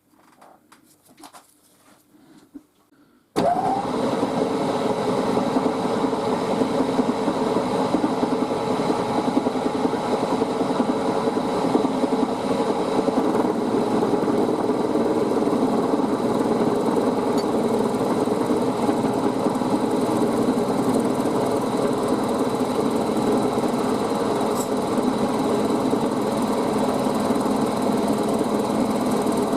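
Milling machine switched on about three seconds in, its spindle motor coming up to speed almost at once and then running steadily. Before it starts, only a few light clicks of handling.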